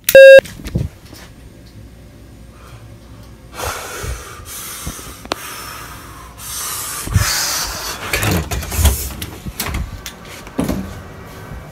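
A short, very loud electronic tone at the start that cuts off after about a third of a second. From a few seconds in there is rushing hiss with scattered knocks and thumps, like movement and a door being handled.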